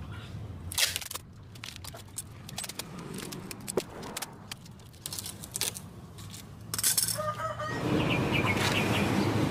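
Packing tape being pulled off its roll in short tearing screeches, with chickens clucking in the background. A louder, steady rush of noise sets in near the end.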